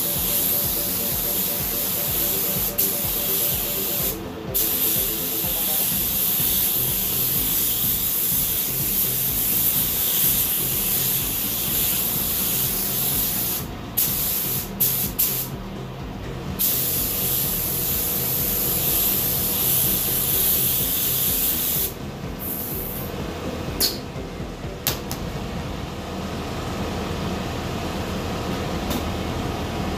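Gravity-feed air spray gun hissing steadily as it sprays paint through a non-skid mat stencil to lay down a carbon-fibre print. The hiss cuts off briefly several times in the middle as the trigger is let go between passes, and is weaker near the end.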